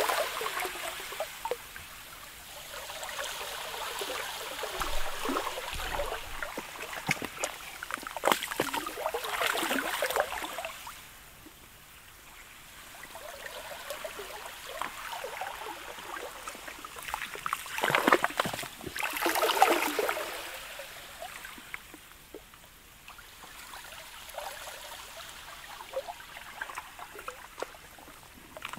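Sea ice, sludge and pancake ice, lapping at the shore: slow surges of water and ice wash in and fade, loudest at the start and again about eight and eighteen seconds in, with fine crackling, clicking and trickling between them.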